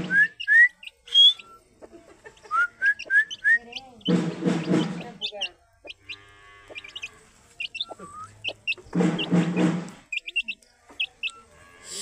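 Aseel chicks peeping in short rising notes and high chirps while pecking at grain. Two louder, lower sounds about a second long come at about four and nine seconds in.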